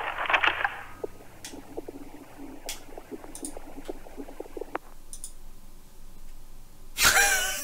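The last sound of a heavy metal song dies away in the first second. Faint scattered clicks and scratches follow, and near the end there is a short loud rush of noise.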